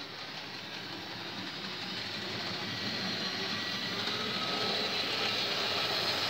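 Hornby model Terrier locomotive and its wagons running on OO-gauge track, a steady mechanical running noise of motor and wheels on rail that grows gradually louder as the train comes closer.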